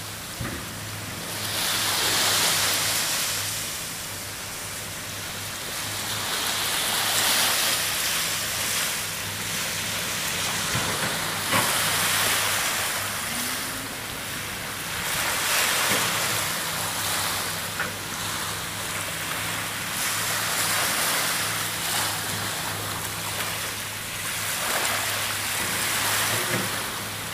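Small waves washing up on a sandy beach, a hiss that swells and ebbs every four or five seconds, over a faint steady low hum.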